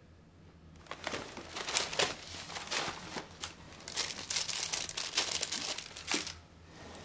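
Newspaper pages rustling and crinkling as they are handled, starting about a second in and stopping about a second before the end.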